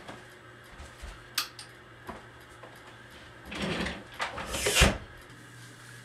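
Handling noises in a small room: a sharp click about a second and a half in, then two short bursts of noise, the second and louder ending in a dull thump.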